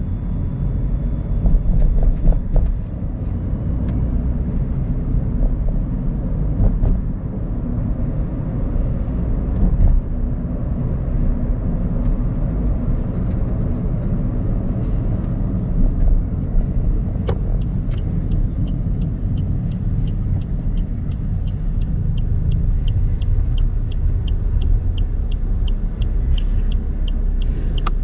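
Suzuki Ignis's 1.2-litre inline-four petrol engine and tyre rumble, heard from inside the cabin while driving, with a few short knocks. From about two-thirds of the way in, a regular light ticking at about three a second joins it.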